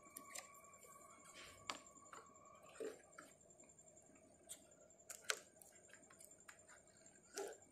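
Faint, scattered clicks and taps of a plastic trim pry tool and fingers working at the rear door's fixed quarter glass and its rubber seal, the sharpest about five seconds in.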